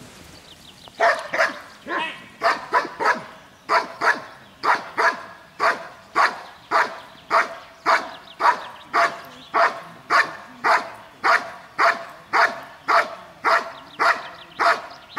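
Dog barking steadily at a helper hidden in a blind, about two barks a second, starting about a second in: the bark-and-hold of a protection-dog trial.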